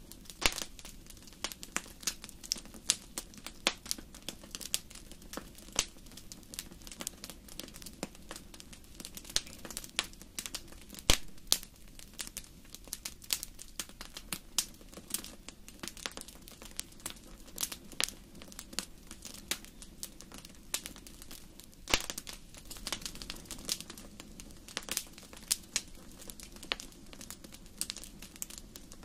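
Wood fire in a fireplace crackling: irregular sharp pops and snaps over a steady low rush of the flames. A few louder snaps stand out, one about a third of the way in and another about three quarters through.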